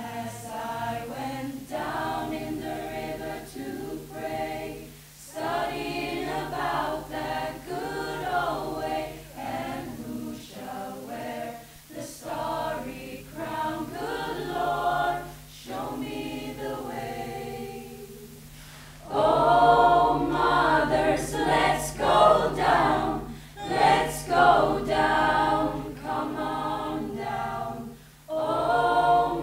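School choir singing in several voices, phrase by phrase with short breaks between, growing noticeably louder about two-thirds of the way through.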